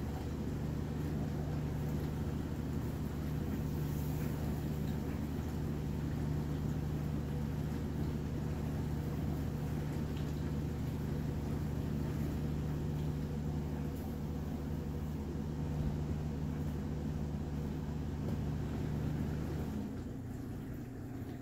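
Steady low mechanical hum of a running motor or machine, with several level low tones, which drops away shortly before the end.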